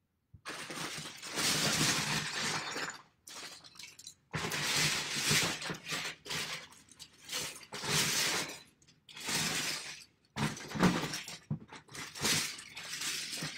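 Plastic Lego bricks clattering and clinking as a hand rummages and digs through a bin of them, in several long bursts with short pauses between.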